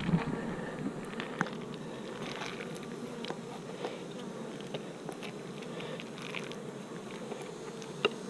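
Honeybees buzzing steadily, with scattered faint ticks and one sharper click near the end.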